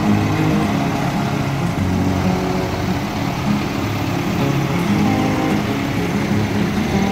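A procession of diesel farm tractors driving slowly past, their engines running steadily. The nearest tractor goes by close, followed by a Massey Ferguson 390.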